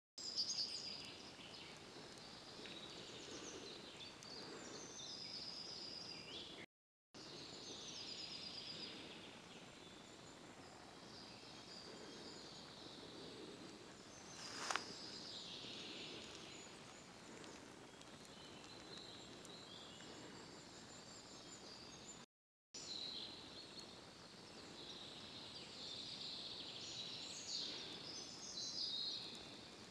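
Quiet woodland birdsong: several small songbirds singing and calling over a soft forest hiss, with one sharp snap about halfway through. The sound cuts out briefly twice.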